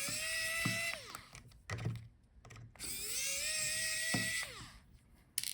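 Electric screwdriver backing out small laptop screws: two short runs of motor whine that rises as it spins up and drops as it stops, the first ending about a second in and the second near the end, with light clicks between.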